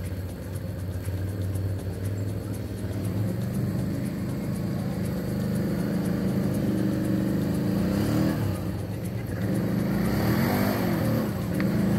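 Quad bike (ATV) engine running at low revs and growing louder, then revving up and down in a series of short throttle blips in the last third.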